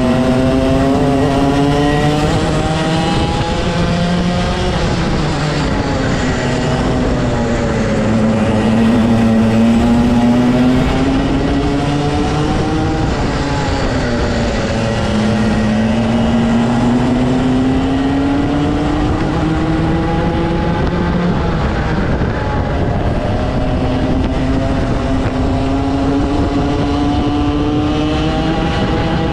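Rotax 125 cc single-cylinder two-stroke kart engine at racing speed. Its pitch climbs steadily as it accelerates, then drops away as it slows, several times over.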